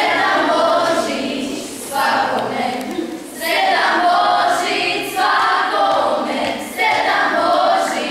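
Choir of schoolgirls singing, in phrases of about a second with short breaths between them.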